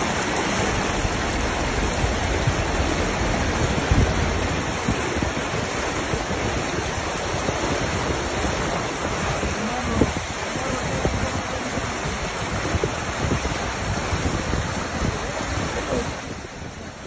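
Muddy floodwater rushing across a flooded road and splashing against a car's wheels as the car drives through it: a steady, dense rush of water that eases off shortly before the end.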